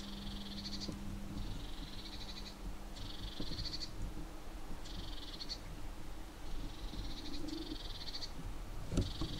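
An animal's high-pitched rasping call repeated over and over, each call under a second long and about one every one and a half seconds, over a faint steady low hum.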